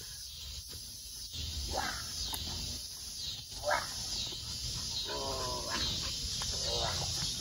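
Young American Staffordshire terrier puppies vocalizing in rough play as they are wrestled: short yelps about two and four seconds in, and a longer drawn-out growling call around five seconds in.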